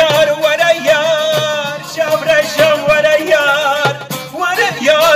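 Background music: a Kurdish song in which an ornamented melody with wavering vibrato runs over regular percussion beats.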